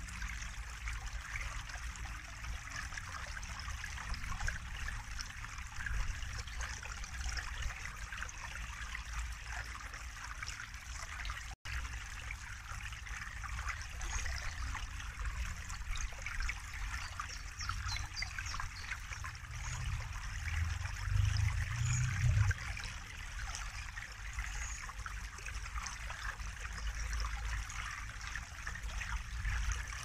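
Small woodland stream running steadily over a low step in a little cascade. A low rumble swells briefly about two-thirds of the way in, and the sound drops out for an instant near the middle.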